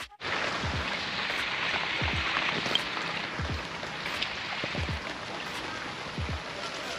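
Heavy rain pattering steadily on a lake's surface and a bamboo raft deck. A low, soft thump repeats about every second and a half underneath.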